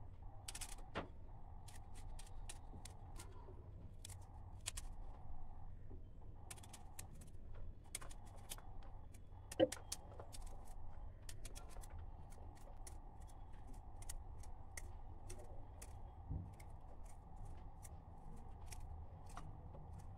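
A kitchen knife tapping on a cutting board in scattered, irregular clicks as vegetables are chopped, with one louder knock about ten seconds in. A faint steady hum runs underneath.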